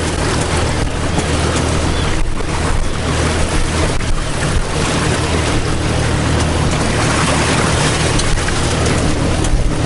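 Honda 250 outboard engine running steadily with a low hum, under a constant rushing of wind and choppy water.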